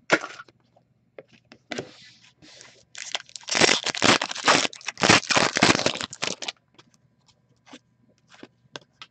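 Foil trading-card pack wrapper crinkling and tearing as it is opened by hand, a dense run of crackling from about three seconds in until six and a half seconds. Small clicks and rustles of cards being handled before and after.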